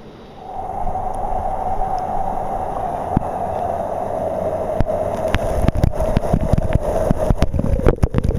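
Steady rush of falling water spray in a wet, steamy hot-spring spot, with drops and splashes hitting the microphone in a dense patter of clicks and knocks from about five seconds in.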